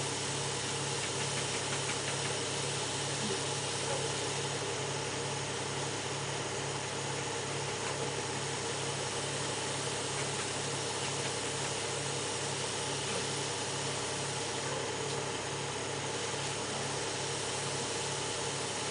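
Steady hum of machinery running throughout, with a regular low throb.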